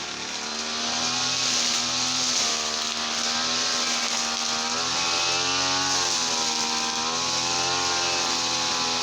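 Petrol brush cutter engine running fast and steady, its pitch wavering slightly up and down as the throttle shifts.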